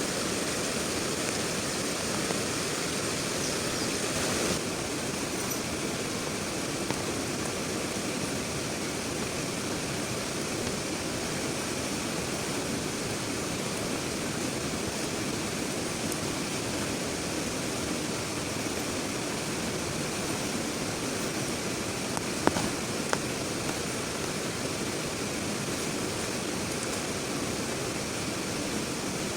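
Heavy rain falling steadily, a dense even hiss that eases slightly about four seconds in. A couple of sharp knocks come about two-thirds of the way through.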